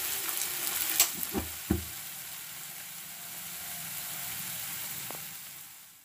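Capsicum and tomato curry sizzling in oil in a kadai, a steady hiss, with a few sharp clicks and knocks between about one and two seconds in. The sound fades out near the end.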